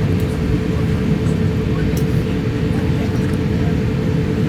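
Steady low rumble of cabin noise inside an Airbus A350 as it rolls on the ground after landing, with a constant hum just under 500 Hz.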